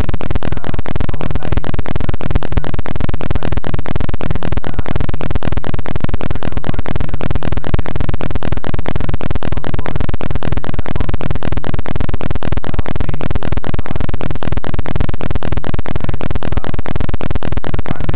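Loud, steady train of rapid, evenly spaced clicks making a harsh buzz with no words heard through it: the audio track is glitching or corrupted.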